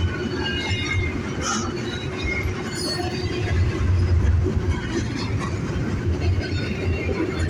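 Norfolk Southern double-stack freight train rolling past: a steady heavy rumble of cars on the rails with scattered high-pitched wheel squeal.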